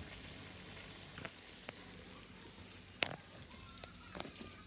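Pasta sizzling faintly in a frying pan, a steady soft hiss, with a few light clicks and knocks; the loudest comes about three seconds in.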